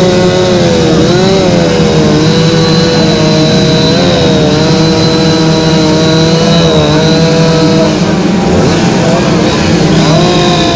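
Several two-stroke chainsaws running at once as carvers cut wood, their engine pitches dipping and rising as they go into and out of the cut.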